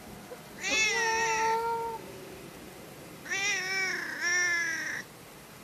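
Domestic cat meowing: two long, drawn-out wavering calls, the second starting about three seconds in.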